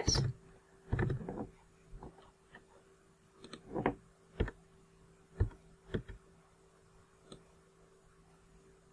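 Scattered clicks of a computer keyboard being typed on, several single key clicks spread out with gaps between them, and a louder short thump about a second in.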